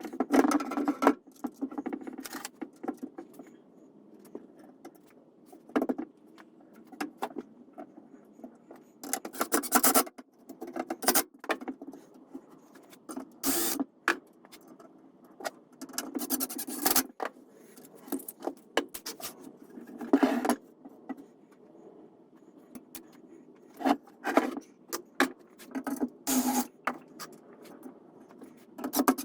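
Irregular metallic clinks and clatter of nuts, bolts and tools against the wrought iron frame and wooden slats while a garden bench is bolted together, with a few denser bursts of rattling about a second long.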